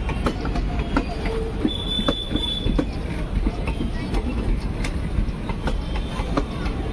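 Indian Railways ICF passenger coaches rolling past at close range: a steady low rumble with continual irregular clicks and clanks of wheels over the rail joints. A brief high squeal comes about two seconds in.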